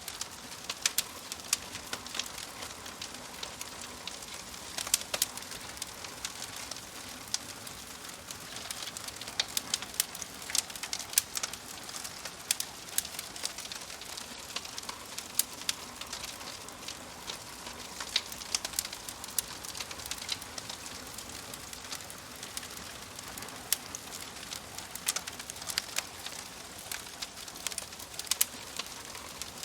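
Wood fire crackling, with irregular sharp pops and snaps over a soft steady hiss.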